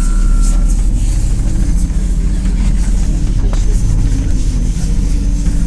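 Interior of a MAZ 203 city bus under way: steady low engine and road rumble. A thin high squeal fades out in the first second.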